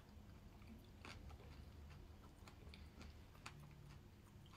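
Faint close-up chewing of soft Bircher muesli, with a few small clicks of mouth noise scattered through.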